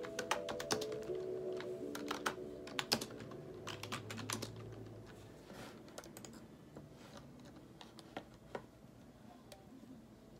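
Typing on a computer keyboard: a quick run of keystrokes over the first half, thinning to occasional key presses later.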